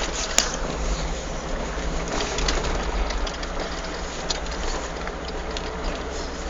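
Peugeot 306 Cabriolet 1.6i on the move, its engine running with a low steady rumble, with irregular sharp clacks every second or so. This is the clacking noise that comes on under acceleration in a straight line.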